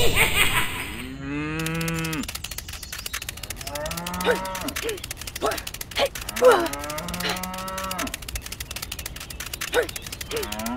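A cow mooing about four times, each a drawn-out call a couple of seconds apart, with a few short clicks in between.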